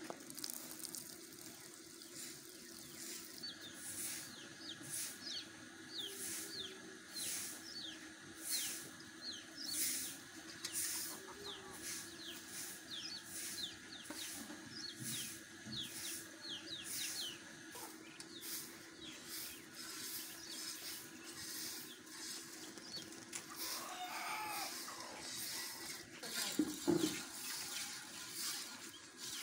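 Hand-milking a cow into a steel pail: milk squirts hiss into the pail in a steady rhythm, about two a second. A few louder bumps come near the end.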